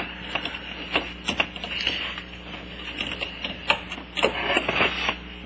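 Irregular metallic clicks and clinks of a spark plug wrench working the spark plug out of a Kymco Super 9's two-stroke cylinder head, several a second.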